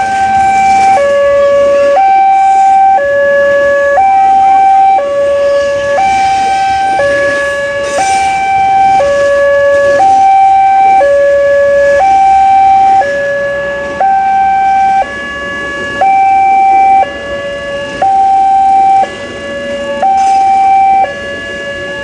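Two-tone hi-lo siren, switching between a higher and a lower note about once a second.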